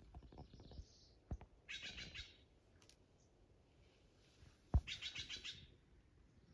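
A bird calling in the woods: two short rapid trills about three seconds apart. Each comes just after a sharp knock, and the second knock is the loudest sound.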